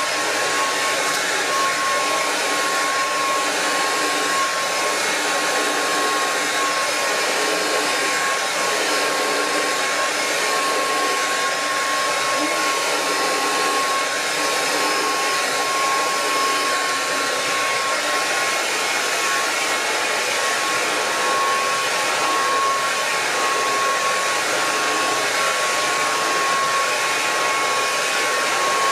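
Handheld hair dryer blowing hair dry, running steadily: an even rush of air with a steady whine on top.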